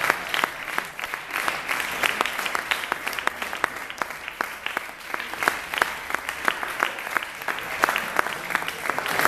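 Audience applauding: a steady stream of hand claps, with single claps standing out from the mass.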